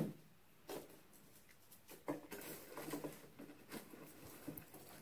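Soft rustling of shredded paper filler as hands rummage through boxes, with a few light knocks of items being handled.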